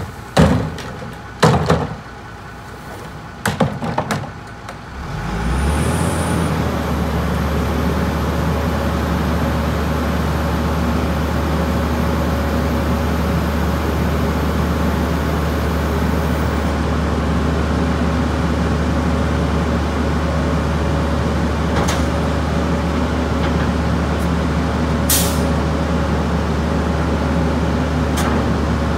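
Heil 5000 rear-loader garbage truck: Christmas trees land in the hopper with a few knocks and rustles, then about five seconds in the truck's engine speeds up to drive the hydraulic packer and runs steadily as the packer blade sweeps and compacts the trees. A short hiss comes near the end.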